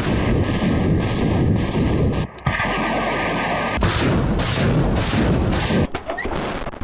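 BM-21 Grad multiple rocket launcher firing a salvo: rockets launching one after another in a dense, continuous rush of noise. The noise is broken by abrupt cuts about two and a half, four and six seconds in.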